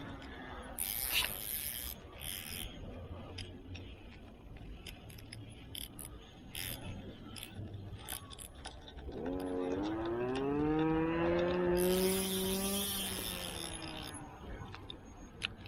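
A passing motor's engine, its pitch rising as it speeds up about nine seconds in, then holding and fading near the end. Light scattered clicks and knocks come before it.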